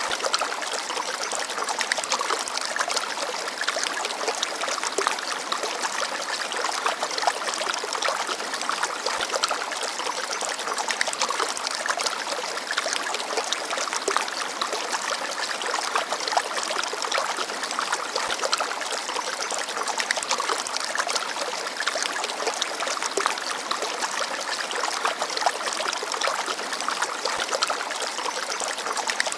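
Forest stream babbling steadily: a continuous rush of running water flecked with fine splashes and trickles.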